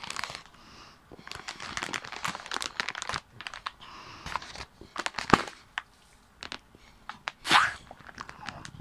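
Crinkly plastic packaging bag full of confetti being squeezed and torn open by hand: an irregular run of crackles, rustles and clicks, with one louder burst about three-quarters of the way through.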